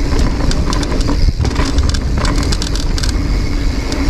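Mountain bike running fast down a rough dirt trail: tyres rumbling over the ground and the bike rattling and clicking over bumps, with wind rushing over the microphone.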